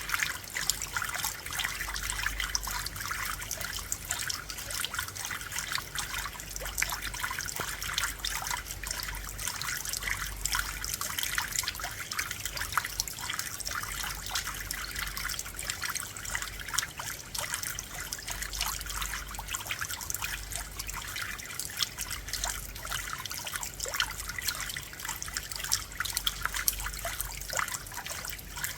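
Steady rainfall: a dense, even patter of many small drop impacts with a trickling, running-water quality.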